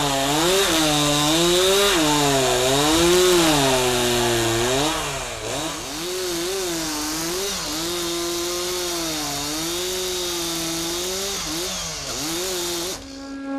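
Two-stroke chainsaw cutting through a log, the engine pitch repeatedly dropping as the chain bites into the wood and rising again as it revs back up. It cuts off abruptly near the end.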